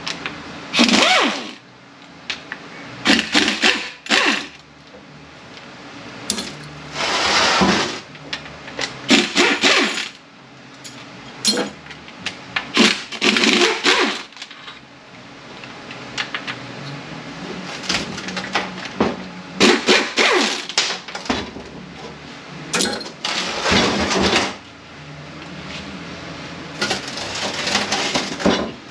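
Pneumatic wrench with a 7/16 wobble socket running in repeated short bursts of about a second each as it spins out the tail housing bolts of an A500/42RH automatic transmission, with small metallic clinks between the bursts.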